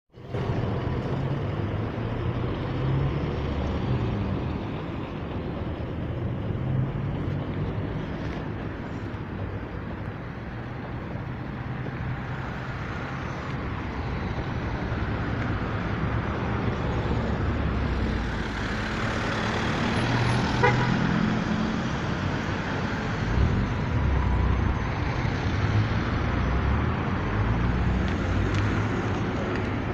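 City street traffic: a steady mix of car and truck engines and tyre noise as vehicles pass. It swells louder about two-thirds of the way through as a vehicle passes close, and there is a brief short tone at its peak.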